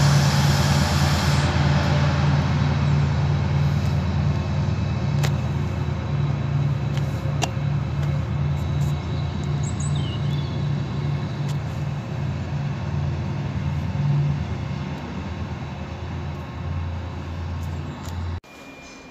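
Class 68 diesel locomotive's engine under power as it propels its train away, a steady low throb that slowly fades with distance. The sound cuts off suddenly near the end.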